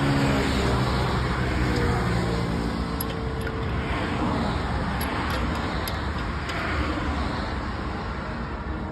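Steady road-traffic and vehicle engine noise with a low hum, and a few faint high ticks in the middle.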